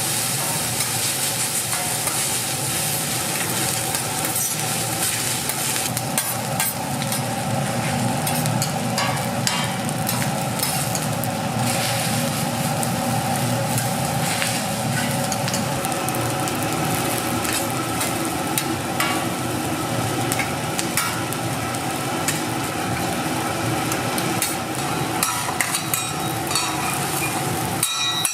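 Egg fried rice sizzling in a hot pan as it is stirred, with frequent sharp clicks and scrapes of the stirring. A steady hum runs underneath.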